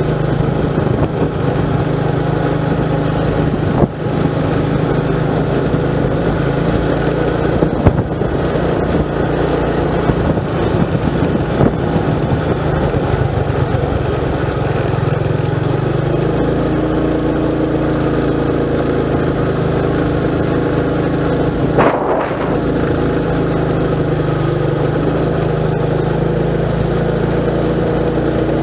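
Motorcycle engine running steadily while riding, its note changing about halfway through, with a few short sharp knocks along the way.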